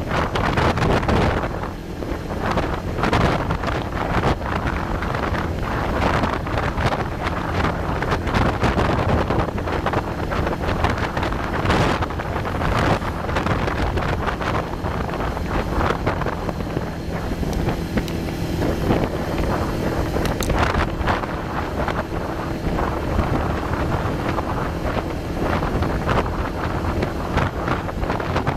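Wind buffeting the microphone of a riding motorcycle or scooter, in constant gusts, with the two-wheeler's engine humming steadily underneath; the hum is a little clearer in the second half.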